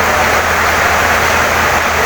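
Heavy rain pouring steadily on a wooden house: a dense, even hiss with a steady low rumble underneath.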